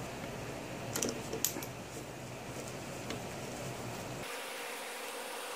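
A few light metallic clicks about a second in, from an Allen bit and screw being fitted into the gear-lube fill hole of a Johnson 15 HP outboard's lower gearcase. They are heard over a steady background hum. The screw is going in right after the fill, to seal the hole before the gear oil runs out.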